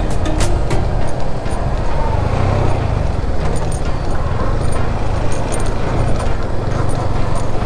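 Motorcycle engine running steadily at low speed, around 20 km/h, with tyre and road noise from a rough lane.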